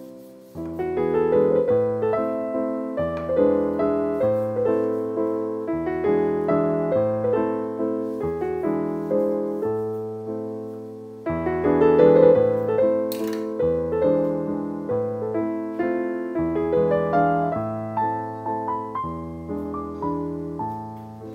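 Background piano music: phrases of struck notes, the second phrase beginning about 11 seconds in.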